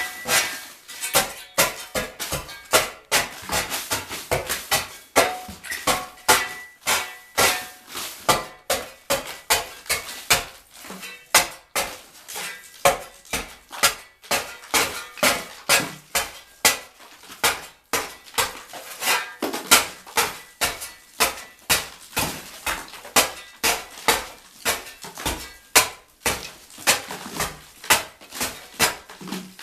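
Repeated hammer blows on a steel tool breaking into an old brick wall, about one to two strikes a second, each a sharp knock with a short metallic ring.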